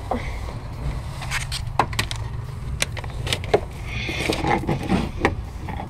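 Scattered clicks, taps and light knocks of tools and metal hose fittings being handled, over a steady low hum.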